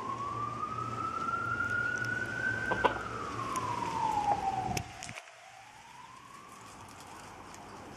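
A siren wailing, one tone rising slowly in pitch for about three seconds, falling for about two, then starting to rise again. There is a sharp click about three seconds in and a knock near five seconds, after which the background noise drops away.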